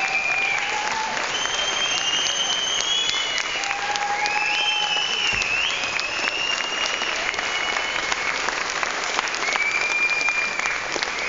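Audience applauding steadily in a hall: a dense patter of many hands clapping, with several long, high whistles and a few calls over it.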